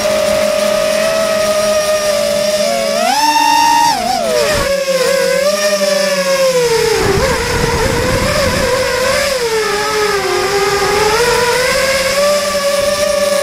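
Quadcopter's Sunnysky 2300kv brushless motors on 3S spinning 5x3 three-blade props: a steady whine that jumps up in pitch for about a second around three seconds in, then drops and wavers up and down with the throttle before climbing again near the end.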